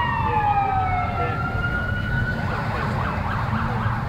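Emergency vehicle siren wailing, its pitch falling and then rising again, before it cuts off about two and a half seconds in, over a steady low rumble.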